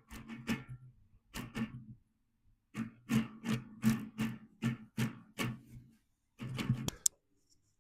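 Guitar strung with elastic bands instead of strings, strummed in bar chords: clusters of strums, about three a second at the busiest, with a low tone held under them. The playing stops with a sharp click near the end.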